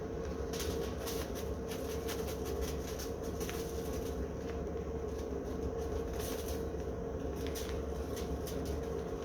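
Plastic bag of brown sugar rustling and crinkling in irregular bursts as the sugar is dug out by hand, over a steady low hum.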